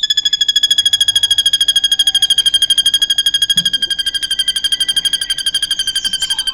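Drongo (srigunting) singing a long, fast, even trill in its learned cililin-style song, about fifteen notes a second, high-pitched and sinking slightly in pitch. Other bird chirps join faintly near the end.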